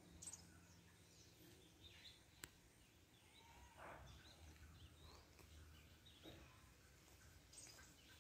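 Near silence: faint outdoor ambience with scattered distant bird chirps, and a single faint click about two and a half seconds in.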